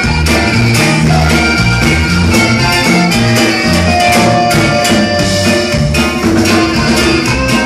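Live norteño band playing with a steady beat: button accordion, saxophone, acoustic guitar, electric bass and drum kit.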